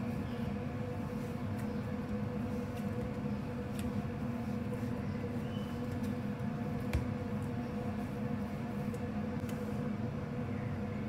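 A steady machine hum with a constant low tone, unchanging throughout, with a few faint clicks and one sharper tap about seven seconds in.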